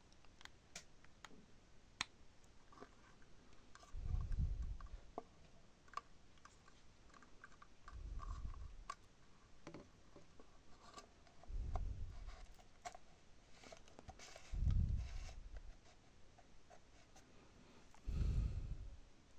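Scattered small clicks and scratches of plastic parts being handled and fitted together, with five dull low rumbles about every three to four seconds.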